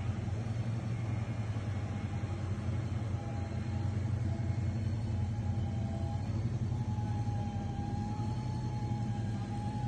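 Steady low rumble of a large exhibition hall's background noise, with a faint thin wavering tone joining about three seconds in and growing clearer near the end.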